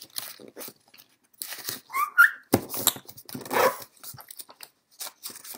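A 6-inch sheet of kami origami paper being folded and creased on a wooden table: dry paper rustling and crinkling with scattered short scrapes. A brief high squeak comes about two seconds in, and about half a second later a sharp tap, the loudest stroke.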